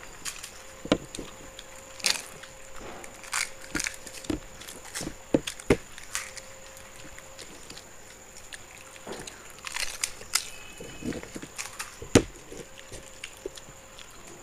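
Two people eating fuchka (pani puri) fast: crisp, hollow puri shells cracking and crunching as they are broken and bitten, with chewing in between. The crunches come as irregular sharp snaps, a few each second at the busiest.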